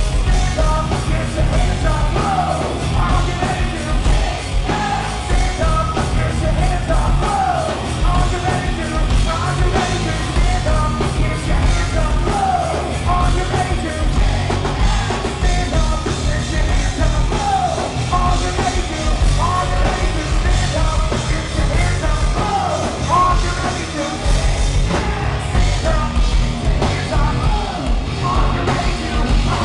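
Hard rock band playing live and loud: electric guitar, bass and drums driving on, with a singer yelling and singing over them in sliding, drawn-out lines.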